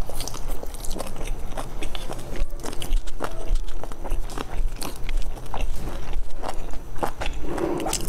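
Close-miked chewing of a soft dumpling: wet mouth clicks and smacks coming irregularly, several to the second.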